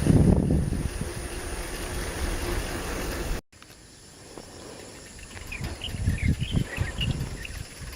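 Wind buffeting the microphone during a bicycle ride, cut off abruptly about three and a half seconds in. A quieter stretch follows, with a few short high bird chirps and scattered low knocks.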